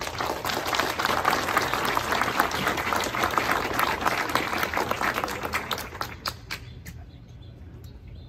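Audience applauding, dying away about six seconds in to a few last scattered claps.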